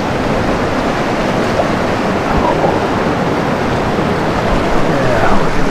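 Steady rush of fast river water running over rocks in a shallow riffle, close to the microphone.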